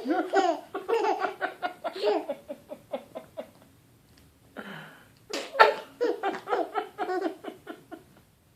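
Baby about six months old laughing in two runs of short, quick giggles, with a brief lull before the second run starts about four and a half seconds in.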